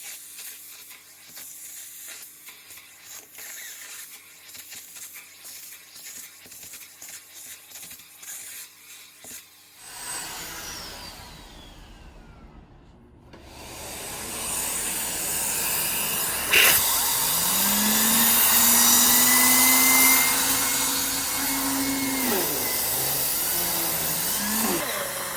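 Miele C2 canister vacuum at work with its attachment tools. For about ten seconds there is quieter scraping and clicking, then a high whine falls away as the motor winds down. A few seconds later the motor starts up again and runs loudly, its suction note rising and shifting in pitch.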